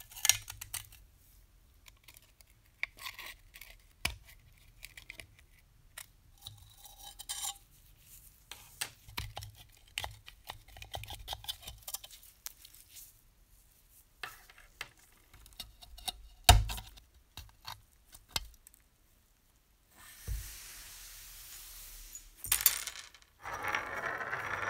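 Rusty sheet-metal parts of a model locomotive being handled and set down on a workbench: light metallic clinks, taps and scrapes, with one louder knock about two-thirds of the way through. Near the end there is a stretch of steady hiss, followed by a louder scratchy rustle.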